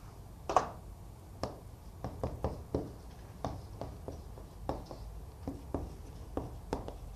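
Chalk tapping and scraping on a chalkboard as Chinese characters are written: a run of short, sharp, irregular strokes, the loudest about half a second in.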